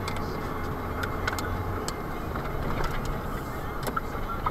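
Pickup truck's engine and road noise heard from inside the cab while driving. The low engine hum eases a little under two seconds in, and short irregular clicks and rattles come through.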